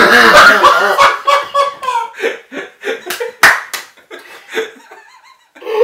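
Two men laughing hard in loud, broken bursts, loudest in the first second, with a sharp hand slap about three and a half seconds in.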